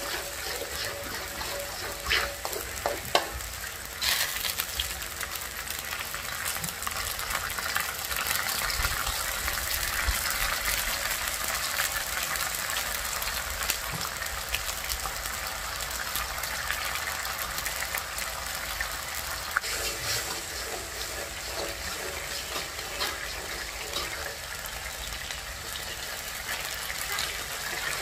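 Oyster-sauce mixture sizzling and bubbling in a hot wok, a steady hiss. A metal ladle knocks and scrapes against the wok a few times in the first few seconds and again near the end as the sauce is stirred.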